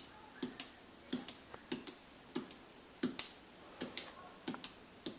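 Pumpkin poker tool punching holes through a paper template into the pumpkin's rind: a run of small sharp clicks, about two or three a second at uneven spacing.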